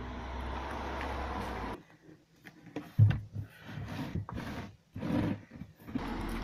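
A plastic box being set down and shifted about on the floor of a car's boot: a sharp thud about three seconds in, then several lighter knocks and rustles. Before it comes a short stretch of steady outdoor noise with a low rumble that cuts off abruptly.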